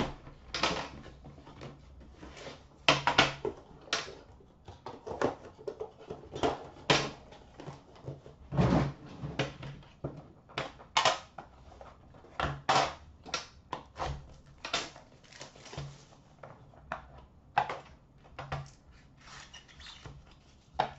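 A sealed hockey card box being unwrapped and opened by hand: irregular rustles, scrapes and knocks of wrapping and box parts, coming in quick clusters with short pauses between.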